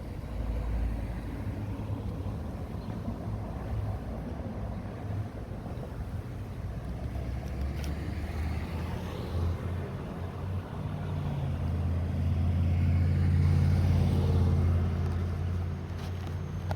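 A motor vehicle's engine running with a low rumble that swells louder about two-thirds of the way through and eases off near the end.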